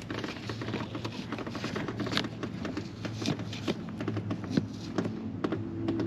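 Hands handling plastic trim and a dirty cabin air filter: scattered light taps and clicks over a low steady hum.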